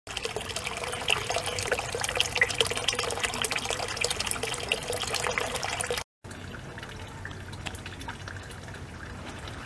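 Water in a garden fish pond trickling and bubbling, a dense patter of small drips and splashes. It cuts off abruptly about six seconds in, giving way to a quieter, steady background.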